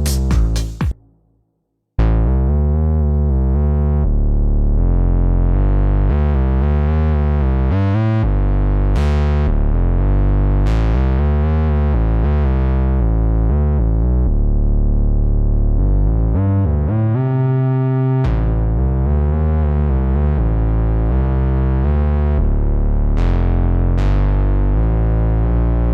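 Waldorf Pulse 2 analog monosynth playing bass presets. A preset of short, rhythmic notes stops about a second in. After a brief gap, the next preset starts: a line of held bass notes whose filter opens and closes, so the tone keeps swelling brighter and falling back.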